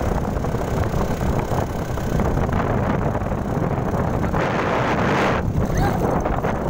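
Wind buffeting the phone's microphone on an open ride, with a vehicle running underneath as a steady rumble. About four and a half seconds in, a louder rush of hiss lasts about a second.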